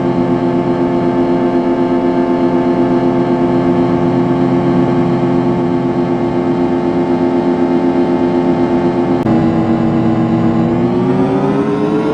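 Electronically processed audio effect: a loud, steady buzzing drone with many evenly spaced overtones. It breaks off abruptly about nine seconds in and resumes slightly lower, then glides steadily upward in pitch near the end.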